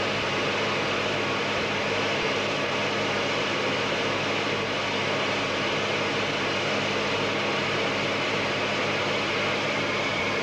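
Cockpit noise inside a Tupolev Tu-22 jet bomber: a steady rushing din with an even low hum underneath.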